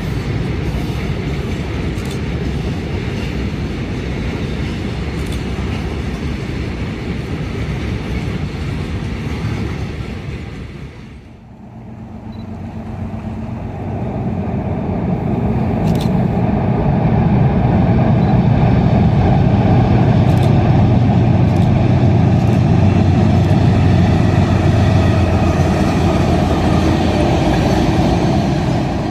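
Freight cars rolling past on the rails, a steady running noise of wheels on track. After a short break, a freight train crossing a steel truss railroad bridge, louder and deeper.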